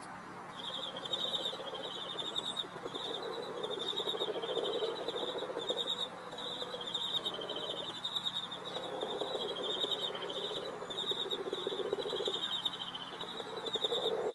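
Frog chorus: low, rapidly pulsed croaking in long runs, with short high trills repeating about once a second above it.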